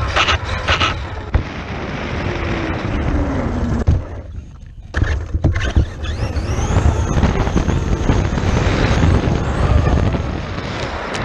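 Large-scale electric RC truck running outdoors, its brushless motor whine rising and falling as it speeds up and slows, under heavy wind buffeting on the microphone; the noise drops off briefly about four seconds in.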